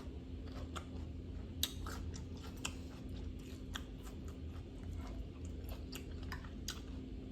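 Close-miked chewing of salad: irregular small crisp crunches and clicks, over a faint steady hum.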